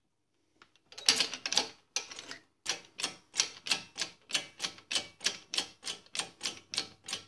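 Rapid, evenly spaced clicking, about three sharp clicks a second after a denser flurry about a second in, as a press drives the Bosch alternator's rotor shaft into the new front bearing in its cover.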